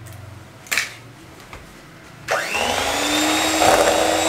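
A single sharp tap just before a second in, then about two seconds in an electric hand mixer switches on, its motor whining up to speed and then running steadily as the beaters whip an egg into creamed butter and sugar.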